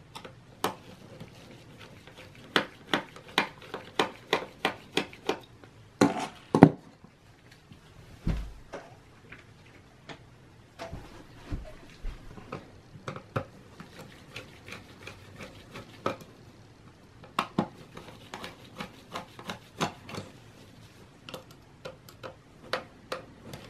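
A small Torx screwdriver working screws inside a Mac mini's aluminium case: runs of small clicks and taps, a few a second, with two louder knocks about six seconds in and a dull thump a couple of seconds later.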